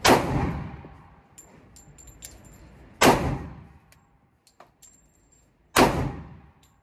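Glock 21 Gen 5 .45 ACP pistol firing three single shots, about three seconds apart, each ringing out for about a second. Light metallic clinks fall between the shots.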